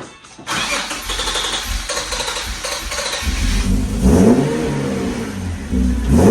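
Infiniti G37's 3.7-litre V6, fitted with aftermarket headers and exhaust, starting up with a sudden loud burst about half a second in, then running on a low note and revved twice.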